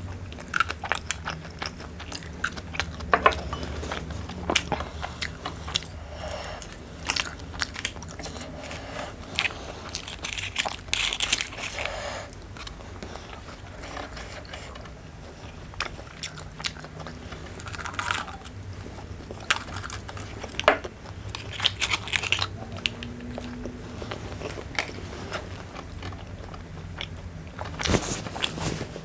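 Close-miked chewing and biting, with crunchy mouthfuls and many sharp, irregular clicks.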